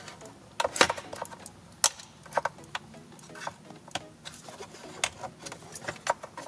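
A dozen or so irregular sharp clicks and taps of a plastic trim pry tool working at the plastic retaining clips of a BMW E90 center dash air vent to free them.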